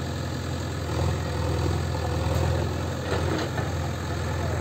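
Diesel engine of a JCB 3DX backhoe loader running steadily under load as the backhoe works. It grows a little louder about a second in.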